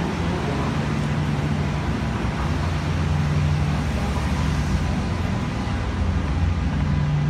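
Steady low mechanical drone, a constant hum of motors over a background rush like city traffic, with no change in pitch or level.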